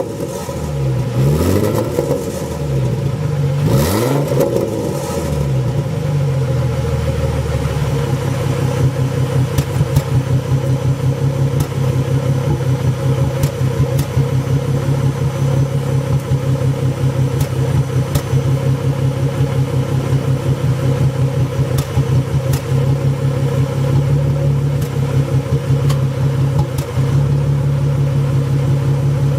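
2005 Ford Mustang's 4.0 V6 blipped through a few quick revs, then settling to a rough, uneven idle with faint pops now and then. The owner ties the popping to the idle sagging into the 600s rpm. The idle note grows slightly louder near the end.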